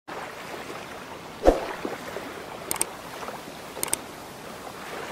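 Intro sound effects: a steady water-like rushing in the background, a single loud thump about a second and a half in, then two quick double clicks of a computer mouse about a second apart, timed to a subscribe button being clicked.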